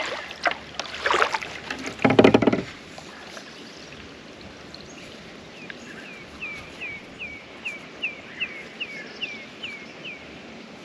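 Kayak paddling noises, paddle and water against the hull, loudest about two seconds in. Then a bird calls a quick run of about a dozen short, high, falling notes, roughly three a second.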